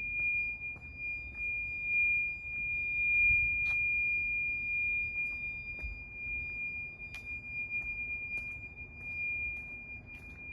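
Smoke alarm sounding from an apartment: one steady, high-pitched tone held without a break.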